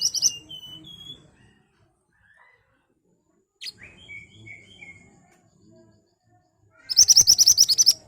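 Pied bushchat (mantenan) singing in sharp bursts. A quick run of high, rapid notes comes at the start, with a few lower chirps after it. A sharp call and short chirps come in the middle, and a loud rapid burst of about a dozen notes comes near the end.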